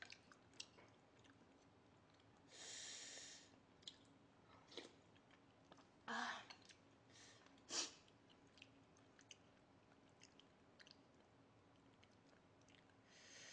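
Faint chewing and small wet mouth clicks of a person eating. A breathy hiss comes about three seconds in, two short louder sounds come near six and eight seconds, and a soft hiss comes near the end.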